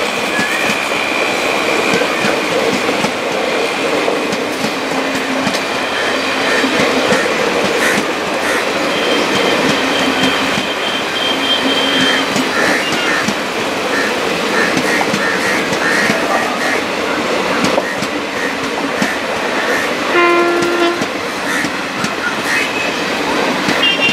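Passenger coaches rolling past on a curve: steady wheel-and-rail noise with clickety-clack over the rail joints and thin wheel squeals now and then. A pitched horn-like tone lasts about a second around twenty seconds in.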